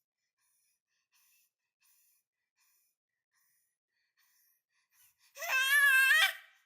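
A seven-month-old baby boy lets out one loud, high-pitched wavering squeal lasting about a second, near the end, after several seconds of near silence.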